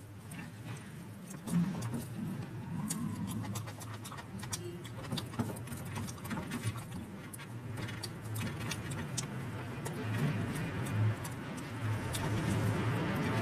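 Eating sounds: chewing with many small, irregular clicks and crunches over a low rumble, growing louder in the last few seconds.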